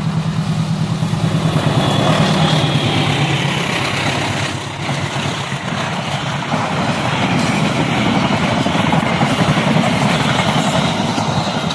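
Passenger train passing close by: a loud, steady rumble and rattle of the locomotive and carriages running over the rails.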